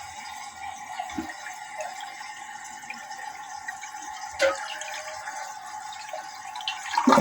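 Rebuilt 1984 Kohler Rochelle toilet refilling after a flush: water hisses steadily through its new brass fill valve, with a steady tone running through it. A brief knock comes about four and a half seconds in.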